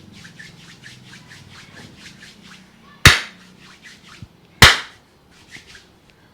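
Hands working over a head during a barber's head massage: quick, light rubbing and patting strokes, a few a second, then two loud sharp smacks about a second and a half apart, with a smaller knock between them and a few more light strokes near the end.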